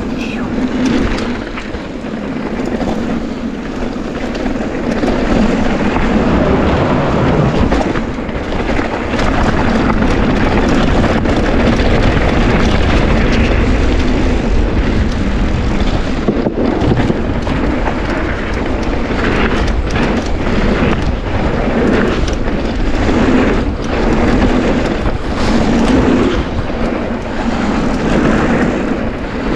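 Mountain bike riding a downhill bike-park trail: tyres rolling over dirt and rocks, with frequent rattles and knocks from the bike over the bumps.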